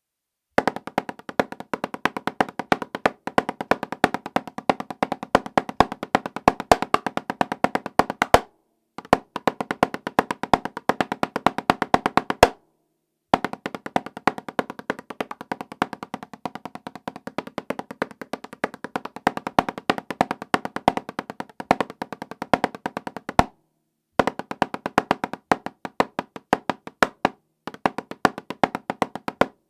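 Drumsticks playing fast strokes on an 8-inch Remo practice pad with a coated Ambassador head, each hit carrying a short drum-like ring. The playing breaks off briefly four times and resumes.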